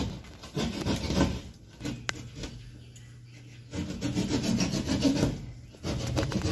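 Gypsum-board ceiling being cut by hand with a small saw, in quick rasping back-and-forth strokes that widen a round downlight hole so the new light fits. The strokes stop for nearly two seconds about two seconds in, then start again.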